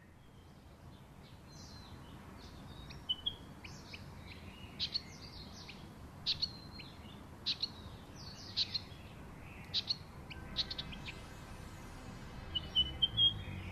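Birds chirping: short, sharp high calls repeating about once a second, with a quick run of chirps near the end, over a steady background hiss that slowly fades up.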